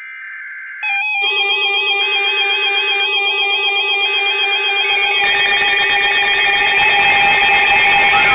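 Emergency alert tones from a weather alert radio: a brief data-burst tone, then from about a second in a loud electronic alarm of several tones stepping back and forth in pitch over a harsh, noisy wash. The sound gets louder about five seconds in.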